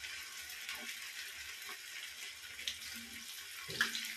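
Batter-coated cauliflower pieces deep-frying in hot oil in an aluminium pan: a steady sizzle with fine crackling. A wire skimmer is stirred through the oil near the end.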